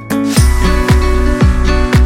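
Background music with guitar; a heavy bass and drum beat kicks in about half a second in, with a strike roughly every half second.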